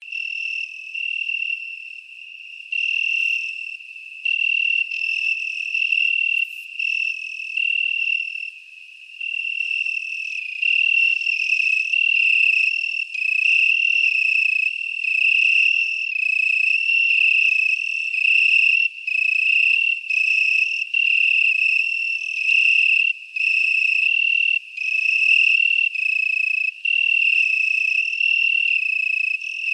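Cricket song: a high, clear trill that comes in spells of about a second with short gaps. It grows louder about a third of the way in.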